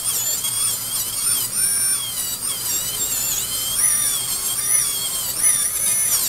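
High-speed dental handpiece (dentist's drill) whining at a high pitch as it cuts on the teeth. The pitch dips and recovers again and again as the bur is pressed against the tooth and eased off.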